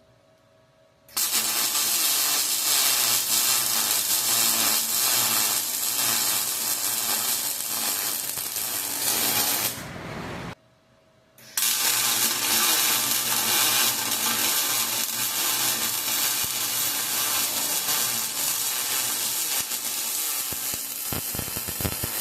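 MIG welding arc of a Prime Weld MTS 200 running, a steady crackling hiss, as a crack in thin metal is filled with weld. Two long beads, each about nine to ten seconds, with a short stop about ten seconds in.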